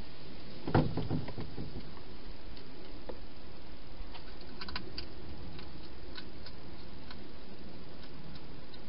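Hedgehog feeding from bowls inside a plastic feeding box: a cluster of knocks and clicks about a second in, the loudest sound, then scattered small clicks of eating, over a steady hiss.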